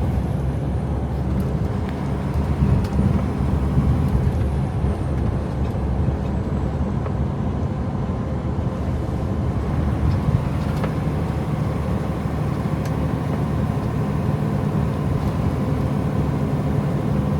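Semi truck driving at highway speed: a steady low drone of the diesel engine and road noise, with a few faint ticks.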